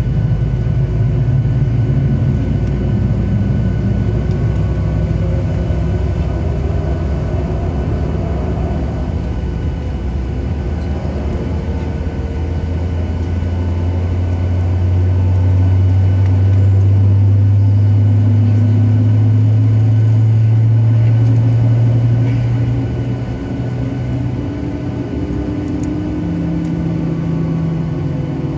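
Boeing 737 jet engines running from inside the passenger cabin while the airliner taxis: a steady low hum with a whine of several tones. The hum swells for several seconds midway through and then settles back.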